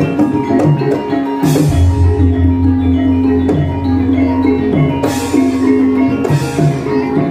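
Javanese gamelan playing: bronze metallophones ring out a steady repeating melody over drums, with a deep low tone entering about two seconds in and three short crashes through the passage.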